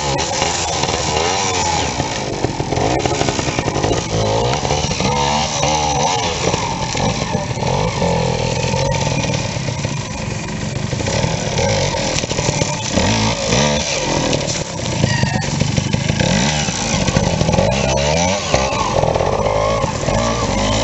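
Vintage trials motorcycle engine revving up and down in repeated short throttle bursts as the bike climbs over logs.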